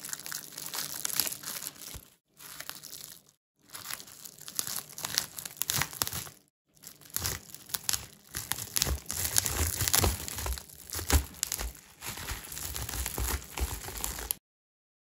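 Plastic bubble wrap crinkling and crackling as it is peeled off set white chocolate on the side of a cake. The sound comes in uneven runs with a few short breaks, and stops suddenly near the end.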